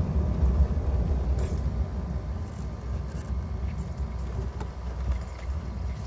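Low road and engine rumble inside a Tata Nexon's cabin as it drives slowly along a rough forest road, with a few light clicks. The rumble eases off a little after about two seconds as the car slows.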